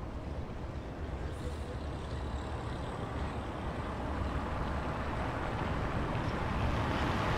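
A motor vehicle approaching, its engine and road noise a steady low rumble growing gradually louder.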